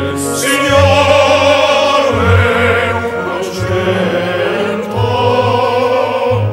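A group of men singing together in chorus, holding long notes.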